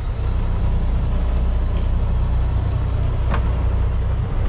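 Semi truck's diesel engine running, a steady low rumble heard from inside the cab as the truck pulls out, with one brief faint click about three seconds in.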